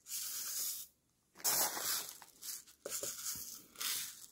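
Plastic poly pellets poured from a small cup into a funnel: a hissing, pattering rush of tiny beads in three pours of about a second each.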